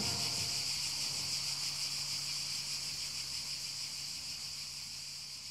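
Insects chirring in a steady high-pitched drone, slowly fading, over a faint low hum.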